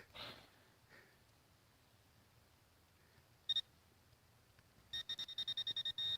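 Electronic beeping from metal-detecting gear: one short high beep about three and a half seconds in, then a rapid run of beeps at the same pitch, about ten a second, near the end.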